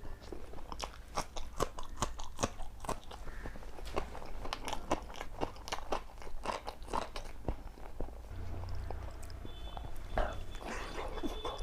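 A person eating close to the microphone: rapid crunching bites and wet chewing, in an irregular, dense rhythm.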